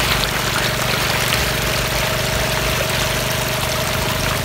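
Water gushing out of an irrigation pipe and pouring across mud into a flooded rice paddy, a steady rush over a low, even engine hum and a faint steady whine.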